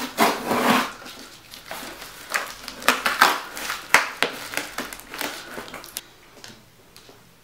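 A cardboard box being torn open by hand: tape ripping and cardboard flaps scraping and rustling in irregular bursts, dying down after about six seconds.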